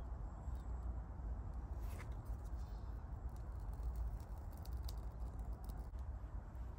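Faint scratching and small clicks from hands working a pine stick and shavings, over a steady low rumble.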